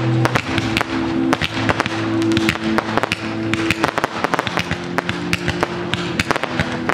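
Aerial fireworks going off, with rapid sharp pops and bangs several times a second over music holding long sustained notes.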